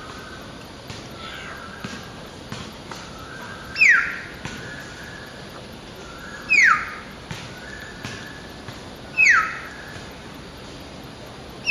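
Hill myna giving loud, sharp whistled calls that sweep downward in pitch, three times about two and a half seconds apart, with softer level whistled notes between them.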